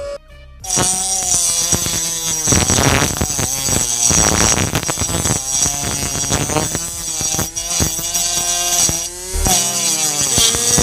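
Small electric motor driving a toy tractor's plastic-bottle auger, whining as the auger drills into sand. It starts shortly after a brief pause, and its pitch wavers and dips as the load changes, with a gritty rattle throughout.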